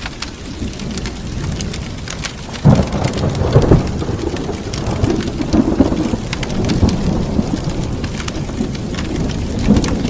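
Rain falling with rumbling thunder. The thunder swells loudest a little under three seconds in and again about a second later, over a steady hiss of rain.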